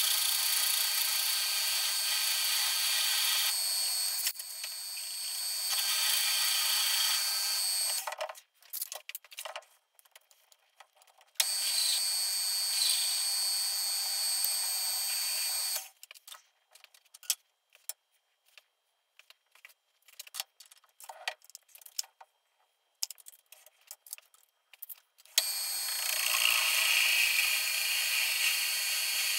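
Metal lathe running with a steel workpiece spinning in its chuck while a twist drill in the tailstock bores into it, a steady machine sound with several thin steady tones. The running sound breaks off twice for a few seconds, leaving only scattered small clicks and knocks.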